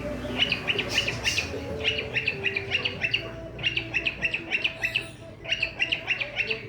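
Cockatiel chirping in quick runs of short, high notes, with a brief pause about two-thirds of the way through.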